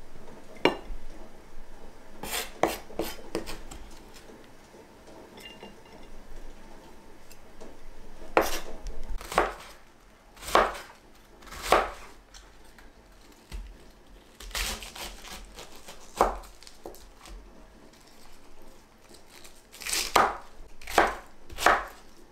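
Kitchen knife slicing cabbage on a wooden cutting board: crisp cuts and knocks of the blade on the board, coming irregularly, sometimes in quick clusters and sometimes about a second apart.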